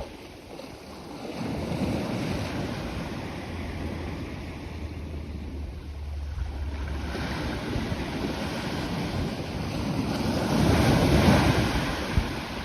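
Sea waves breaking and washing up the beach, with wind buffeting the microphone; the surf swells and is loudest a little before the end.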